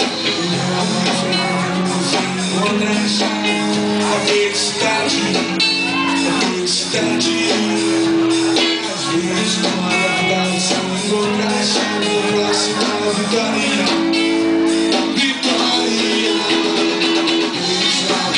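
Loud band music with singing and strummed guitar, playing continuously.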